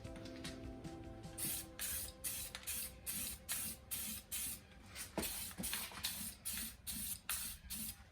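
Aerosol can of satin clear coat spraying a wheel in short repeated bursts, about two or three hisses a second, starting a little over a second in.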